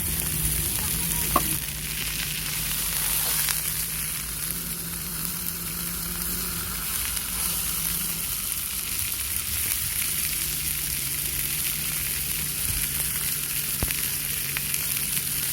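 Food sizzling as it fries in a hot pan, a steady dense hiss, with a low hum underneath. A single sharp tick comes about a second and a half in.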